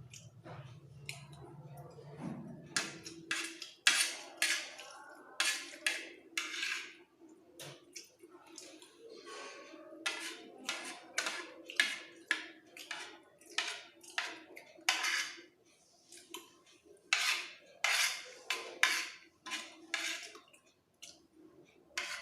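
A spoon scraping and clinking against a plate of fried rice as it is scooped up, in many short, irregular strokes.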